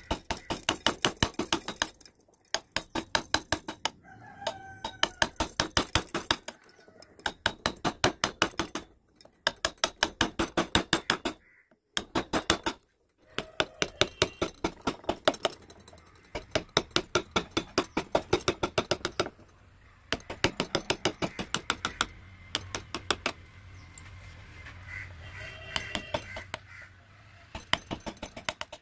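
Carving chisel being struck in quick runs of sharp wooden taps, about six a second, in bursts of a second or two with short pauses between them.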